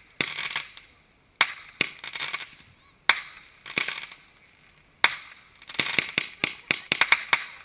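Aerial fireworks going off: a handful of sharp bangs a second or so apart as shells burst, then a quick run of many crackling pops about six seconds in.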